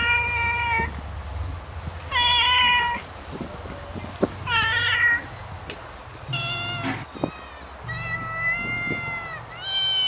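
Siamese cat meowing repeatedly: about six drawn-out meows, one every second or so, some sliding up in pitch at the start.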